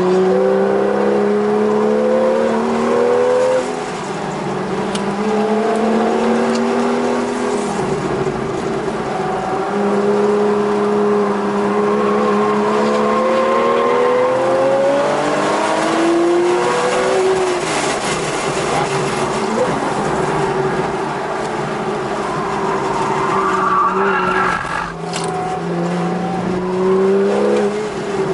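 Porsche 991.1 911 GTS's naturally aspirated 3.8-litre flat-six, heard from inside the cabin, driven hard on track: its pitch climbs steadily through the revs, then drops sharply several times at gear changes and lifts for corners.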